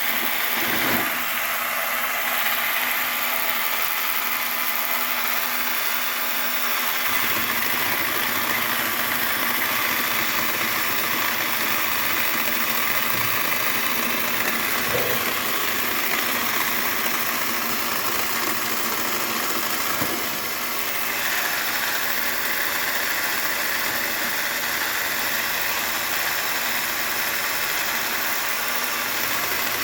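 An engine running steadily at a low, even speed, with no revving; its low end grows a little fuller about a quarter of the way in.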